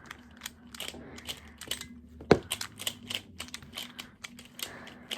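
Plastic speed cubes being turned quickly by hand: a string of irregular plastic clicks and clacks as the layers snap round, with one louder clack about two seconds in.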